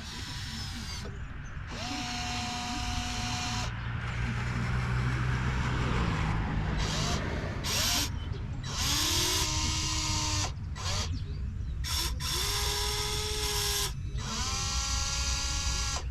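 Electric motors and hydraulic pumps of radio-controlled model construction machines whining in repeated bursts of one to two seconds, each starting with a brief rise in pitch, over a steady low hum.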